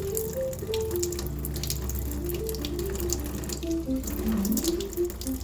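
Water running from a tap into a bowl of flour and salt, wetting dumpling dough, with light background music playing.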